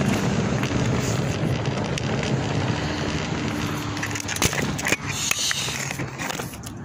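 Street noise heard while walking, with the phone rubbing against a jacket. There are a few sharp knocks about four and a half and five seconds in.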